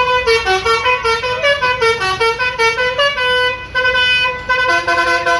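Bus's multi-tone Basuri melodic horn playing a quick tune of changing notes, then settling into a held chord that gains a lower note near the end.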